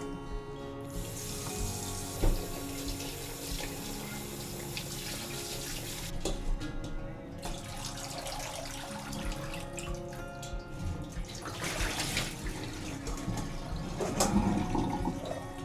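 Water running from a tap into a sink, a steady stream from about a second in for roughly five seconds, then shorter spells later, with some clatter of handling near the end. Soft background music runs underneath.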